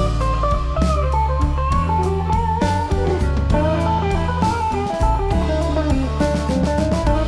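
Background music: a guitar-led instrumental with electric guitar melody, bass and a steady drum beat.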